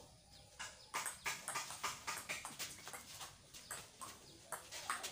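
Table tennis rally: the celluloid ball clicking off the bats and the table in a quick, fairly even rhythm of about three hits a second, starting about a second in.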